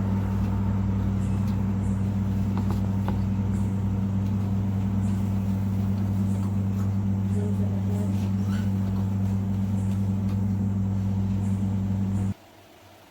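Steady low mechanical hum, such as a kitchen fan or appliance motor, with a few faint clinks over it; it cuts off abruptly near the end.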